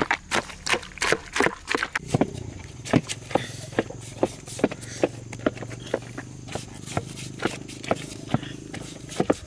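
A steady series of sharp knocks or taps, about two and a half a second, over a low steady hum that comes in about two seconds in.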